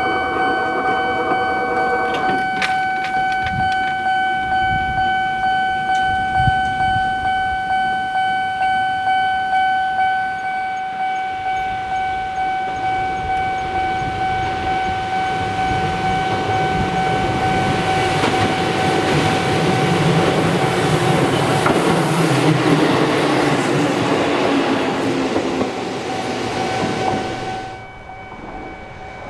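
Japanese level-crossing warning bell ringing in a steady repeating ding, about one and a half strokes a second, stopping near the end. An Eizan Electric Railway train passes through the crossing in the second half, its running rumble rising and then fading.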